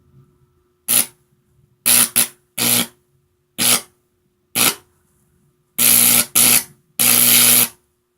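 High-voltage arcs from a microwave oven transformer buzzing and crackling as they burn through an apple, in about nine separate bursts of a fraction of a second each, the last lasting nearly a second. A faint steady transformer hum runs underneath.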